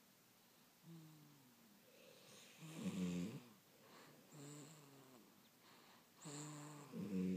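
Two sleepers snoring: a run of pitched snores that fall in tone, coming every second or two, the loudest and roughest about three seconds in and again near the end.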